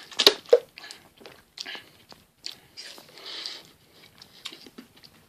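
Someone sipping a carbonated energy drink from a bottle and swallowing. The sip and swallow come with mouth and lip sounds and short clicks, the loudest right at the start.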